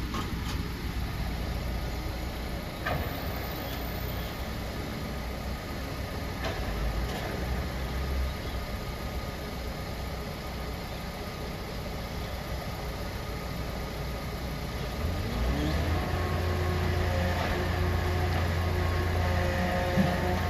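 Grapple-crane garbage truck's engine idling, then about three-quarters of the way through it rises to a higher, louder steady speed with a steady whine. This is typical of the hydraulic pump being driven as the crane arm starts to lift.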